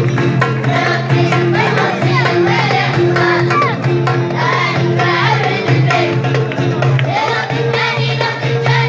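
Group of school pupils singing an Amazigh song over instrumental accompaniment with steady held low notes.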